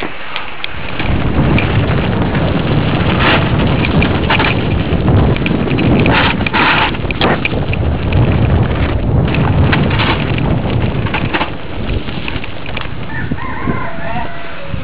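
Mountain bike ridden over rough ground with the camera on board: a heavy rumble of wind and tyres with sharp rattles and knocks from the bike, starting about a second in. Near the end comes a brief wavering squeal.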